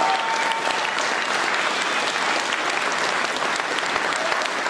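Audience applauding steadily, a dense patter of many hand claps.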